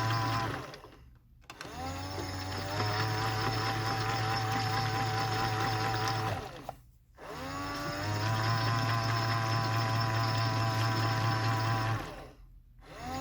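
AEG/Electrolux Lavamat 84950 washing machine drum motor tumbling the wash in the final rinse: it runs steadily for about five seconds, stops for about a second, then starts again with a rising whine, three times over, as the drum reverses direction.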